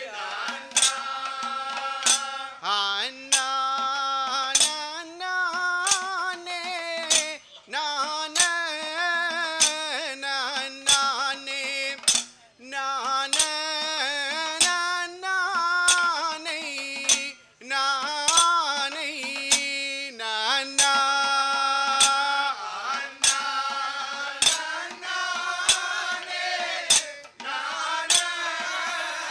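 A group of men singing a Kanniyarkali song in unison, the melody rising and falling in long sung phrases. Sharp metallic strikes keep a steady beat of roughly one a second under the singing.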